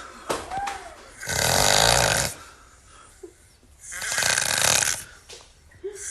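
A man snoring loudly: two long, rasping snores, each about a second long and roughly two and a half seconds apart, with a third beginning at the end and quieter breaths between them.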